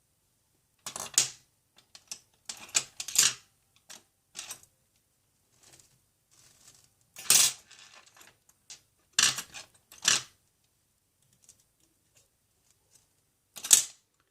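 Small metal tools and parts clinking and tapping against a hard work surface: a scatter of sharp, ringing clicks, some in quick pairs, with pauses between them.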